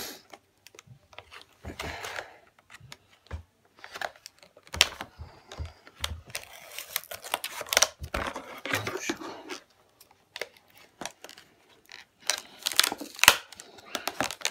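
Scissors snipping through a stiff, hard plastic clamshell blister pack: irregular sharp snaps and cracks of the plastic with crinkling of the packaging, pausing for a couple of seconds before picking up again near the end.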